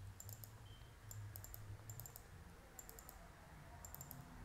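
Faint computer mouse clicks, about a dozen short sharp ticks scattered unevenly, some close together in pairs, over a low steady hum.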